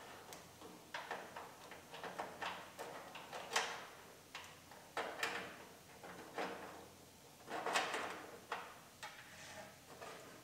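Wiring harness being fished through the bare sheet-metal trunk lid of a 2007 Honda Civic Si: irregular rustles, light clicks and knocks of the plastic-clipped harness against the panel.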